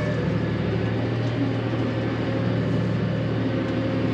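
Tractor engine running steadily at PTO speed (540), driving a twin-rotor hay rake, with a constant even drone.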